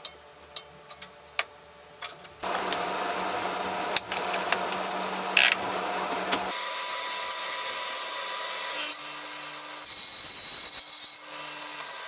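Table saw running with its motor and blade at speed, after a few light knocks and clicks from handling at the start. Near the end a high whine falls in pitch as the blade begins to slow.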